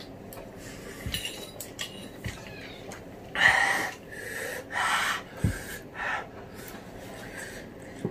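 A person sucking in sharp, hissing breaths and breathing hard against the burn of extremely spicy noodles, three strong in-breaths, the loudest about three and a half seconds in. A few light knocks of cutlery or a bottle on the table come in between.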